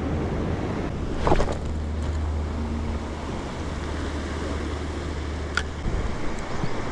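Wind buffeting the microphone with a steady low rumble, over surf washing against a rock shelf. A short louder swish comes about a second in and a single sharp click near the end.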